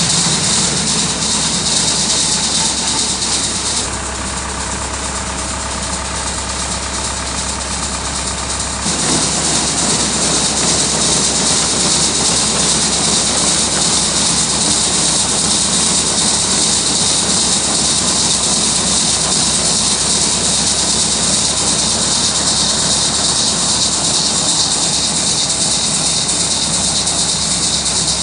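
Tractor engine running steadily, driving a grinder-mixer's unloading auger, with a steady hiss of seed pouring from the auger spout into a grain drill's seed box. The sound dips a little between about 4 and 9 seconds in.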